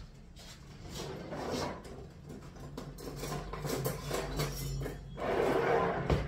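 Kitchen handling noises: irregular clattering, knocking and rustling, with a louder scraping rustle about five seconds in, over a low steady hum.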